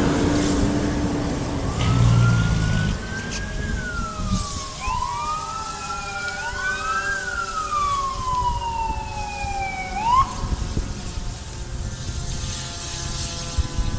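Two emergency-vehicle sirens wailing in slow rising and falling sweeps that overlap for several seconds, then cut off about ten seconds in. A heavy engine rumbles in the first few seconds.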